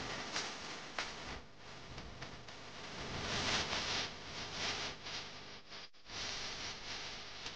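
Murmur and rustle of a crowd at a meal, with occasional sharp clinks of steel plates and tumblers. The sound cuts out briefly about six seconds in.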